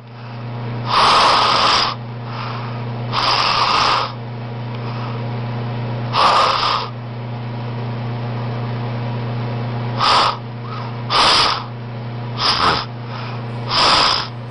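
A young man snoring, with seven loud, harsh rasping snores, each half a second to a second long and spaced irregularly, over a steady low hum. The doctor puts the noise down to a sagging, elongated uvula and soft palate blocking the airway as air moves in and out.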